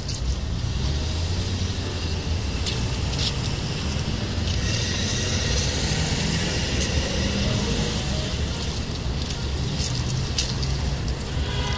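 Outdoor street ambience: steady low rumble of road traffic with a broad hiss that swells about five seconds in, and a few light clicks.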